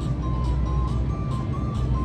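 Music: a simple high, single-note melody stepping between a few pitches over a steady ticking beat, with a low steady rumble underneath.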